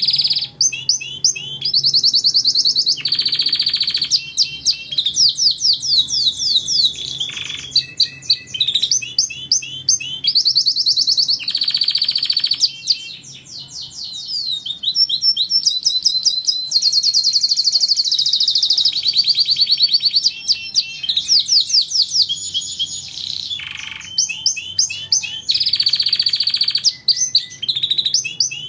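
Domestic canary singing a long, continuous, high-pitched song of fast trills and rapidly repeated phrases that change every second or two, with only brief pauses.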